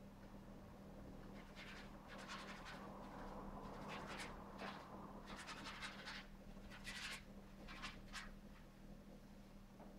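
Paintbrush strokes on a stretched canvas: a run of short, scratchy dabs and drags, faint, over a steady low hum.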